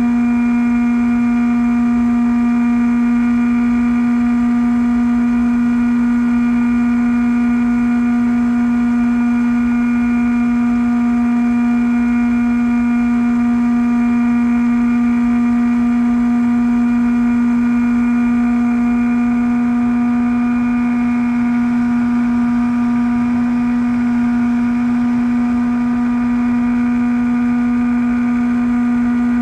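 Bixler v1.1 foam RC plane's electric motor and pusher propeller running at a steady throttle, a constant even whine with no change in pitch. It is heard from the onboard camera over a low rush of wind on the microphone.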